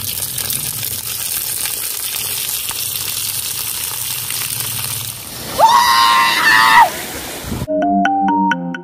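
Thin coconut milk pouring in a steady stream onto masala-coated fish and banana leaves in a metal pot, splashing for about five seconds. A short voice-like sound that rises and falls follows, and music with a beat starts near the end.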